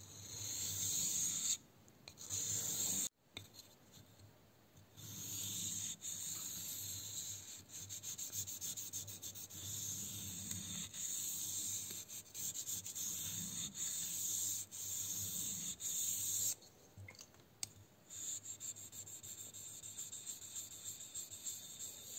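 Steel blade of a Fiskars grafting knife being rubbed on a wet 5000-grit Samura whetstone, a rasping scrape in repeated strokes. There are short breaks about two seconds in, from about three to five seconds, and again near seventeen seconds.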